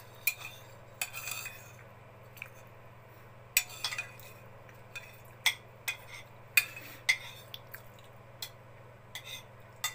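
Metal cutlery clinking and scraping on a plate while eating, in irregular sharp clicks, a dozen or more.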